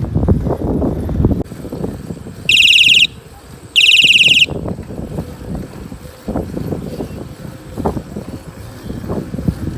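Electric bike horn sounding twice: two loud, high-pitched electronic blasts, each about half a second long and about a second apart. A low rumble of wind and riding runs underneath.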